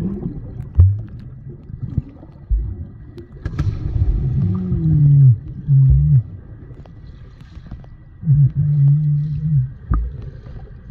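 Muffled sound heard underwater: dull thumps of people plunging into the water and rushing bubbles, with short low hums in between.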